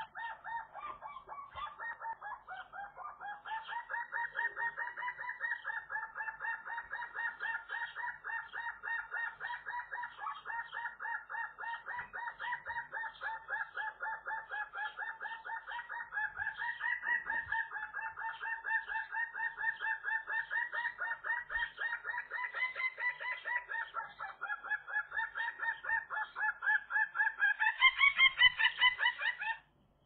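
Eurasian magpie giving a long unbroken series of rapid, evenly paced nasal begging notes, loudest near the end, then stopping abruptly. This is typical of an incubating female calling for food from her mate.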